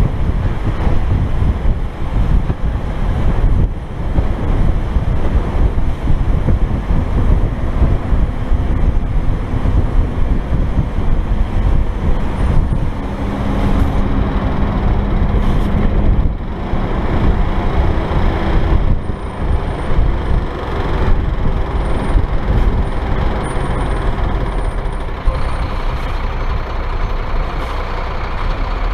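Truck driving at road speed, heard from a microphone mounted outside on the cab: steady diesel engine running under heavy wind rumble on the microphone.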